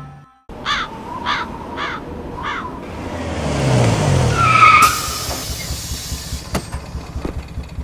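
A bird calls four times, evenly spaced. Then a bus pulls in: its engine noise swells, brakes squeal and air hisses out about five seconds in, and the engine settles into a steady pulsing idle.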